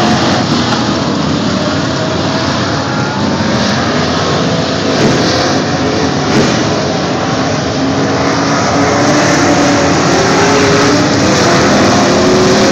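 A pack of street stock race cars running at racing speed, their engines blending into a loud, steady drone. Several engine notes rise and fall as the cars accelerate and lift through the turns.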